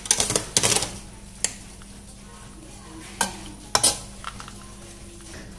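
Perforated steel spoon clinking and scraping against a wide pan of half-cooked rice: a quick cluster of clinks at the start, then a few separate knocks.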